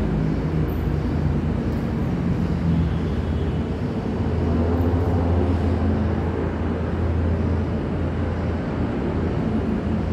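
A steady low mechanical drone, like a running engine or motor, over a broad rumble; its hum strengthens about four seconds in.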